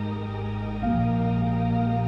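Background music: soft ambient new-age synth pad with sustained chords, shifting to a new chord a little under a second in.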